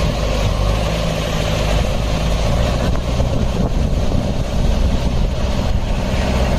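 Heavy diesel engine idling steadily at close range.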